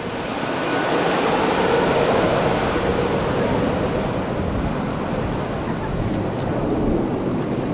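Twin-engine jet airliner passing low overhead on landing approach with its gear down: a loud rushing engine noise that swells over the first couple of seconds, then slowly fades as the plane heads away toward the runway.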